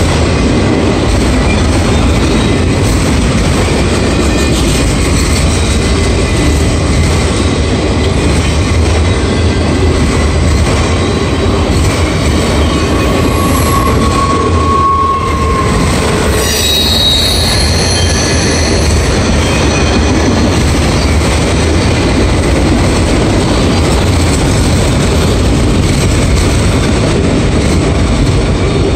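Loaded autorack freight cars rolling past close by, with the loud, steady noise of steel wheels on rail. About halfway through, wheels squeal for several seconds, first at one steady pitch and then at a higher one.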